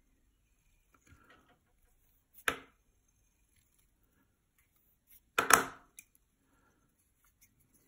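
Handling noises at a fly-tying vise: a sharp knock about two and a half seconds in, then a louder cluster of knocks and rustle about five and a half seconds in, with faint fiddling sounds between.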